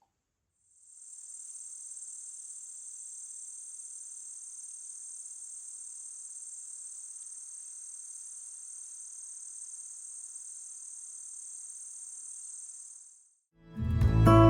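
Steady, high-pitched insect trill, unbroken, fading in about a second in and out again near the end. Louder instrumental music starts just before the end.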